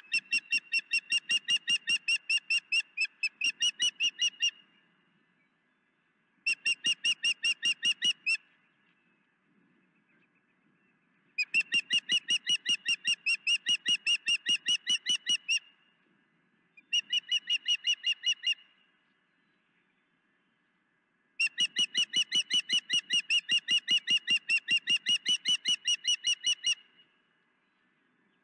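Osprey calling in rapid trains of short, high-pitched chirps, about six a second, in five bouts of two to five seconds each with short pauses between.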